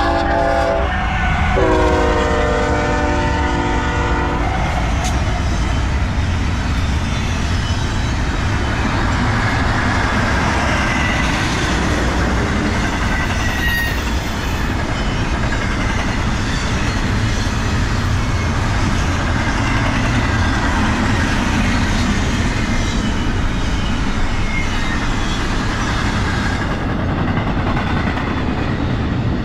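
BNSF freight train horn sounding a short blast, then a longer blast of about two and a half seconds, each a chord of several notes. Then the steady rumble and clatter of the train rolling past.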